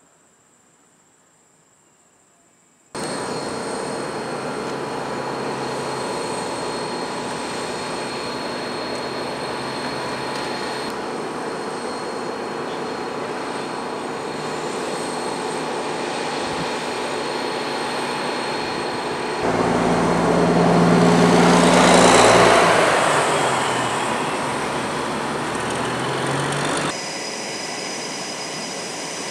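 Faint insect chirring at first. A few seconds in, the steady noise of F/A-18 Super Hornet jet engines running on the flight line cuts in suddenly. Past the middle it swells louder, peaks, then eases back down near the end.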